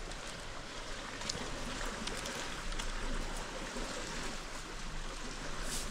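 Steady rushing outdoor noise, even and unbroken, with a few faint clicks.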